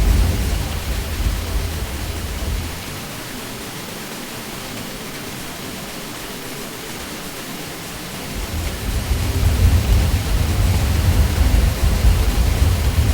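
Ceiling fan drone: a steady, even hiss with a deep low rumble underneath. The rumble drops away for several seconds in the middle, then swells back.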